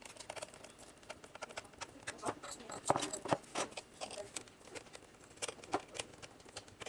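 Irregular small clicks and taps of a small Phillips screwdriver and screws against a Lenovo IdeaPad laptop's plastic bottom case as the screws are driven back in.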